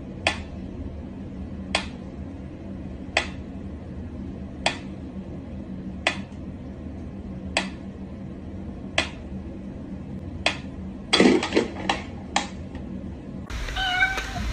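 Mechanical pyramid metronome ticking slowly and evenly, about one sharp tick every second and a half, then a short clatter of irregular clicks and knocks about eleven seconds in.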